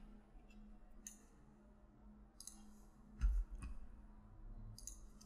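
Faint clicks of a computer mouse, a handful spread out, with one louder knock a little past halfway.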